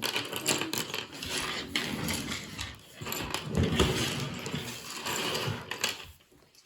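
Small plastic toy pieces and a plastic playset being handled close to the microphone: a busy run of clattering, clicking and rustling that stops about six seconds in.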